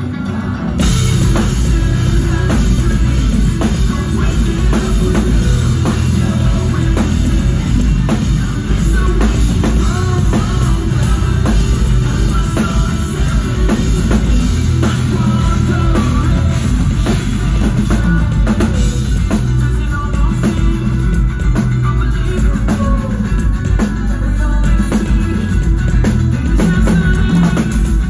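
Live rock band playing at full volume: drum kit, electric guitars and bass guitar. The full band comes in with a jump in loudness about a second in and drives on steadily from there.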